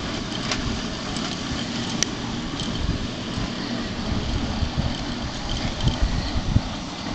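Stroked small-block Chevy V8 with a Comp 284 cam running at a rough, uneven idle, its low exhaust pulses irregular and a little stronger near the end. A single sharp click about two seconds in.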